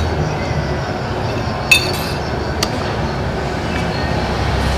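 A metal spoon clinking against a ceramic bowl: one sharp clink a little under two seconds in, then a fainter one about a second later, over a steady background noise.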